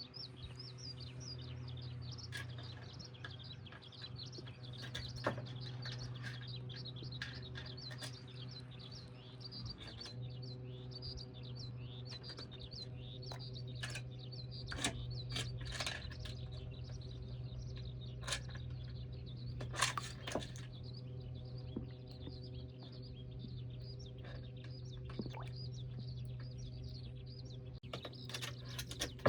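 Small birds chirping continuously over a steady low mechanical hum, with a few sharp clicks now and then.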